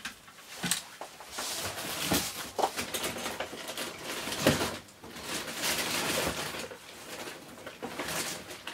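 Packaging rustling and items knocking together as hands rummage through a large box of toys, in irregular swells with a few sharp knocks.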